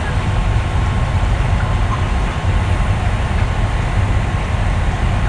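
Steady low rumble of a broiler control shed's ventilation fans running, with a faint steady whine above it.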